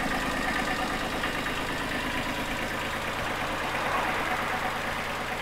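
Kubota B2350 compact tractor's three-cylinder diesel engine idling steadily.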